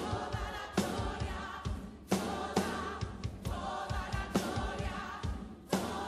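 A choir singing a Spanish-language worship song over a full band, with strong drum hits cutting through every second or two.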